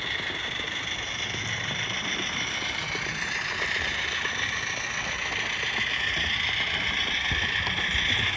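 Small 32mm live steam locomotive hissing steam in a steady rush, with no exhaust beats.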